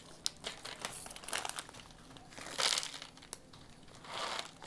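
A crinkly snack bag being handled, rustling in four short bursts, with a couple of sharp clicks.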